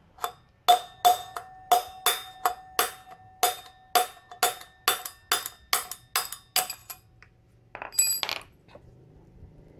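Hammer striking a steel drift rod set through a motorcycle wheel hub, knocking out a worn wheel bearing: a steady run of sharp, ringing metal blows, about three a second, that stops about seven seconds in. About a second later comes a brief metallic clatter.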